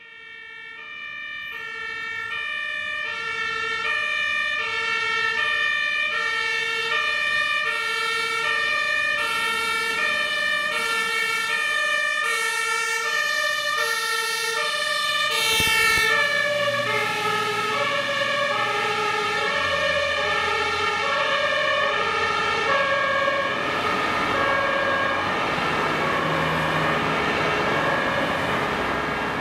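German fire engine's two-tone siren (Martinshorn) on a turntable ladder truck, sounding continuously. It grows louder as the truck approaches and drops in pitch as it passes about halfway through. Engine and road noise rise as it drives off.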